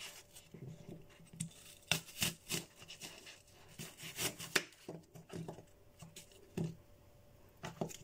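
Knife cutting through an apple on a wooden cutting board: an irregular series of crisp cuts and knocks of the blade against the board.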